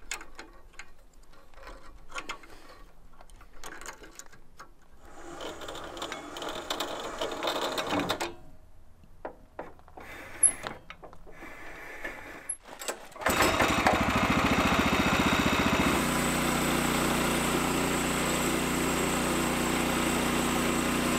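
Light clicking and rattling as the mill's saw head is adjusted by hand. Then, about two-thirds of the way through, the Norwood portable bandsaw mill's gasoline engine comes in suddenly and runs steadily as the head is pushed along a log. The mill is working properly again after a broken tensioner piece on the saw head was replaced.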